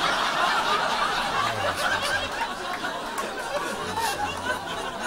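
Audience laughing, loudest at first and gradually dying down.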